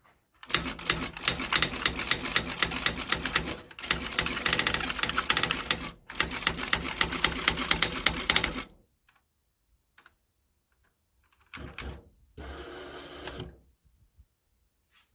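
IBM Wheelwriter 3 electric daisywheel typewriter typing at speed, a rapid run of print strikes broken by two brief pauses, then stopping. After a pause, two short mechanical bursts come near the end.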